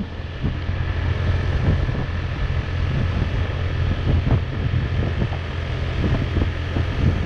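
Wind rushing over the microphone of a moving motorbike, with the bike's engine running steadily underneath.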